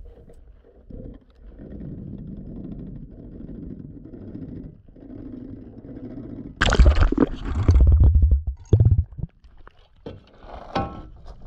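A low, even underwater rumble. About two-thirds in it gives way to a sudden loud rush of splashing water noise as the anchor is hauled up at the boat's side. Near the end the anchor chain clanks and scrapes against the hull.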